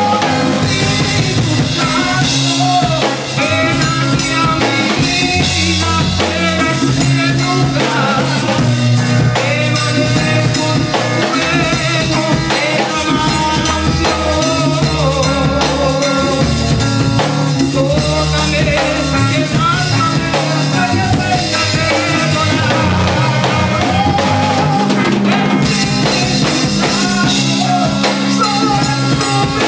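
A woman singing a worship song into a microphone, backed by a live band: a drum kit with cymbals and an electric bass keep a steady beat under her voice.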